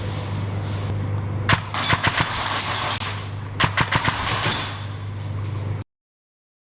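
Airsoft guns firing short strings of sharp snapping shots over a steady low hum, in three clusters. The sound cuts off suddenly near the end.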